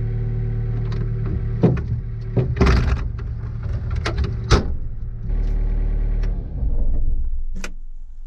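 Mini excavator engine idling in the cab, with sharp clunks and a sliding rattle as the cab's front window is unlatched and raised. Near the end a click comes and the engine winds down and stops as the key is turned off.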